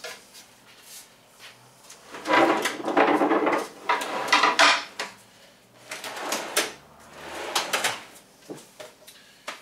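Wooden galley drawers in a teardrop trailer being slid open and pushed shut: wood rubbing on wood with knocks, in two bouts, the first about two seconds in and the second near the end.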